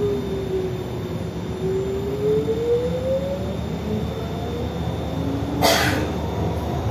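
Astra Imperio Metropolitan tram heard from inside the passenger cabin while running: a steady low rumble of the wheels on the track under the whine of the electric traction drive, which dips and then climbs in pitch. A short, sharp noise cuts through about five and a half seconds in.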